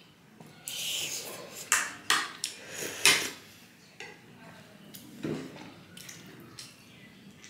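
Metal spoon and fork clinking against a ceramic soup bowl and plate, in a few sharp separate clinks, the loudest about three seconds in. Between the clinks come softer mouth sounds of chewing and slurping momo and soup.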